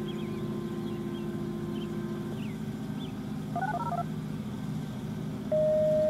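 Radio alerting tones: a steady low tone that stops about two seconds in, a short run of touch-tone beeps near the middle, and a higher steady tone that starts near the end. These are typical of the signal sent to set off a Federal Signal Model 7 siren, which has not yet started. Birds chirp faintly behind them.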